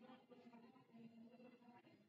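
Near silence: room tone, with faint pitched sounds in the background.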